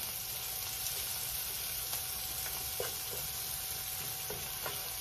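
Diced onion and garlic sizzling steadily as they fry in a sauté pan, being browned. A wooden spoon stirs them, with a few faint clicks against the pan.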